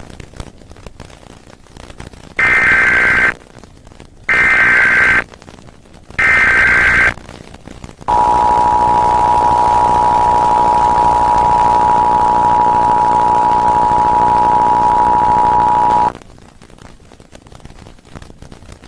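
Emergency Alert System test tones: three short bursts of the digital SAME header, each about a second long, followed by the EAS attention signal, a steady two-tone beep held for about eight seconds that cuts off abruptly.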